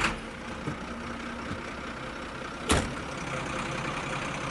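Faint steady background noise, with one sharp knock a little past halfway as plastic toy vehicles are handled on dirt ground.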